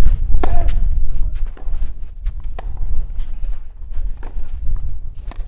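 Tennis rally: a ball struck back and forth with rackets, sharp pocks every second or two, over a steady low rumble.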